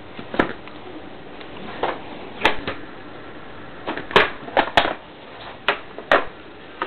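A string of about nine sharp, irregularly spaced clicks and knocks: handling noise of objects being moved close to the microphone.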